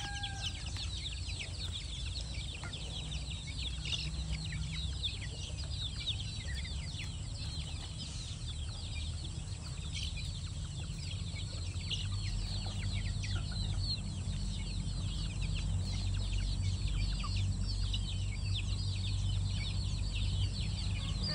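A flock of KUB kampung chickens with chicks at the feed, giving a constant chatter of short high peeps and clucks over a low steady rumble.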